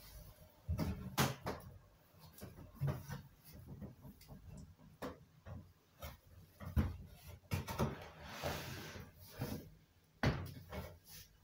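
Irregular knocks, clicks and scrapes of a homemade pool table being handled and set up by hand, with a longer rustling scrape about eight seconds in.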